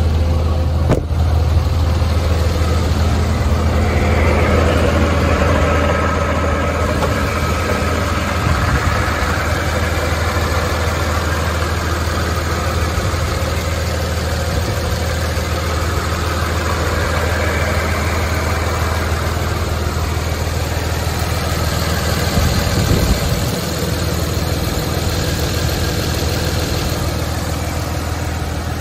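2005 Ram 3500's 5.9-litre Cummins inline-six turbo diesel idling steadily.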